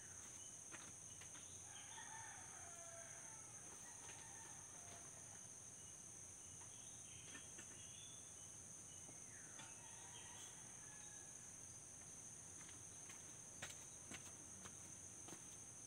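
Roosters crowing faintly, once about two seconds in and again about seven seconds in, over a steady high chirring of insects.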